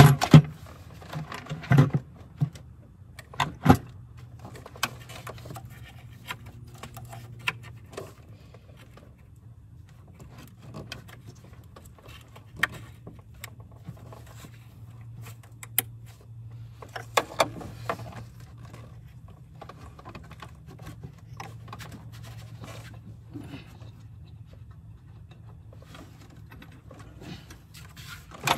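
Scattered clicks, taps and knocks of the intake plenum and its fittings being handled and seated by hand in a V6 engine bay, over a steady low hum. The clicks bunch up at the start and again about two-thirds of the way through.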